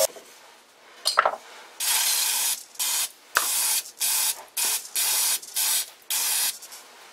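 Aerosol spray can sprayed at a metal lathe part in a series of about eight short hissing bursts, after a single sharp knock about a second in.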